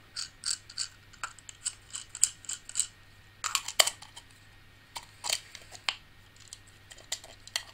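Small hard clicks and taps of a telescope eyepiece and 1¼-inch 90-degree mirror diagonal being handled and fitted together, the eyepiece a tight fit in the diagonal. A quick run of ticks in the first three seconds, two sharper clicks at about three and a half seconds, and a few more between five and six seconds.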